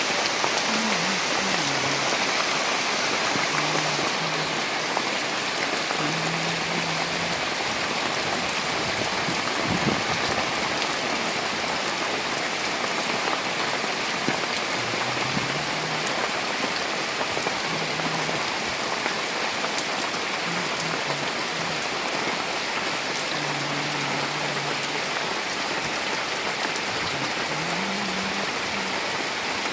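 Steady rain falling on surfaces, an even dense hiss, with short low tones now and then in the background and a single sharp tick about ten seconds in.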